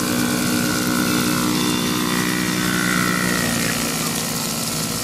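Four-wheeler (ATV) engines running steadily on a dirt track: a full-size quad carrying two riders, with a child's mini quad alongside. The engine note is a steady drone.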